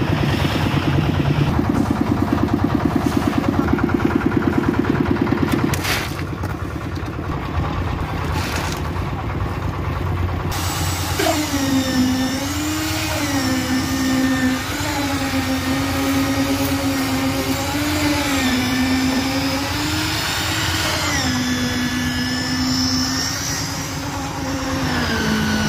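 Engine of a concrete mixer running with an even pulsing. From about ten seconds in, a concrete needle vibrator joins it with a steady hum whose pitch sags and recovers as the poker works the fresh concrete in the plinth beam formwork.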